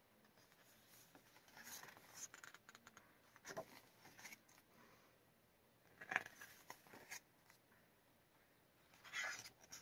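Faint rustling of glossy photo-book pages being turned and smoothed by hand, in a few short brushes and flips, the loudest about six seconds in and another near the end.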